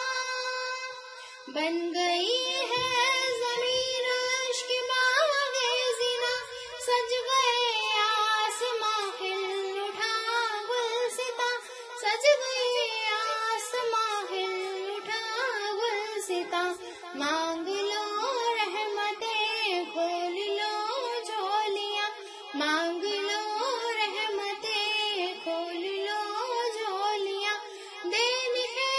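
A high voice singing a naat, an Urdu devotional song in praise of the Prophet Muhammad, in long, bending phrases with held notes and short breaks between lines.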